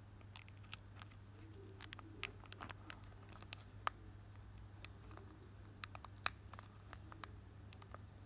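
Foil wrapper of a Pokémon trading-card booster pack crinkling and tearing as fingers peel it open: quiet, irregular crackles and ticks, with a few sharper snaps, over a steady low hum.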